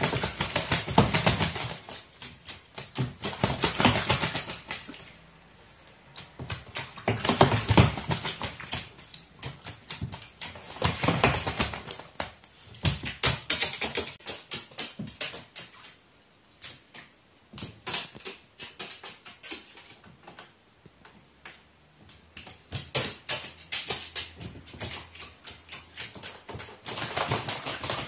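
Crow bathing in a shallow plastic tray of water, beating its wings and splashing in repeated bouts of one to three seconds, with quieter pauses between them.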